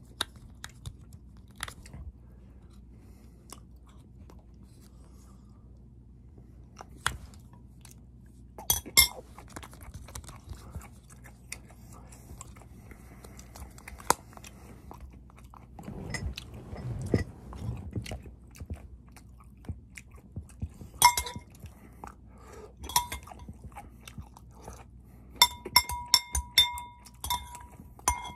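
Scattered clicks and crinkly handling sounds, then from about 21 seconds in a metal spoon clinking against a ceramic bowl, each strike ringing briefly, with a quick run of clinks near the end as the sweet corn is stirred.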